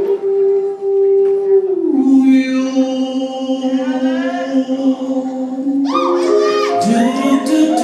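Music for a dance routine: a long held note that steps down in pitch about two seconds in, then quick swooping rising and falling tones from about six seconds on.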